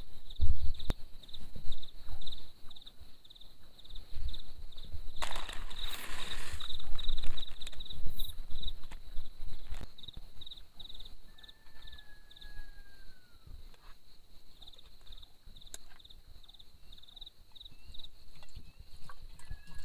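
An insect chirps in a high, fast, even pulse throughout. Low knocks and thumps come in the first half, with a short rustle in the middle, and a few thin whistled calls follow later.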